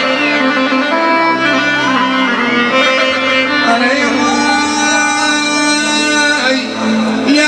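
Instrumental Iraqi popular music with no singing: a sustained melody ornamented with gliding notes over a bass line that moves from note to note.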